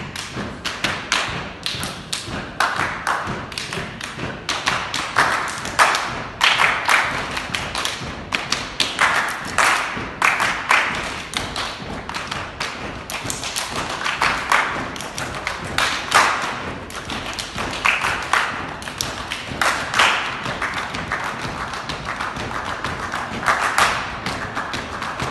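Percussion ensemble playing a fast rhythmic piece with their hands: a dense, continuous run of claps, taps and thuds with recurring louder accents.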